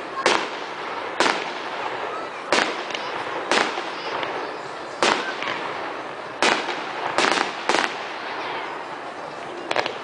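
Aerial firework shells bursting in the sky: about nine sharp bangs at irregular intervals, a second or so apart, some in quick pairs.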